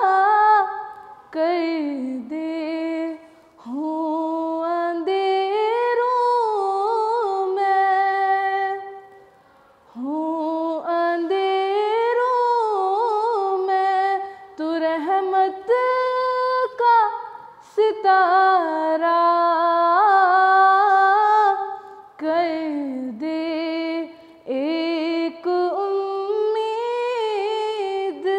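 A girl singing an Urdu naat solo and unaccompanied, in long, ornamented held notes with short pauses between phrases.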